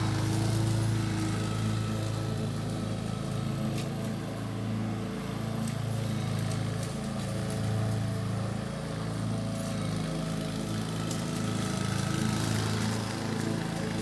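Lawn mower engine running steadily, its level wavering slightly now and then.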